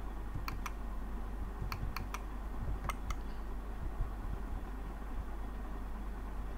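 Computer mouse clicking, about seven sharp clicks in the first three seconds, some in quick pairs, over a steady low hum.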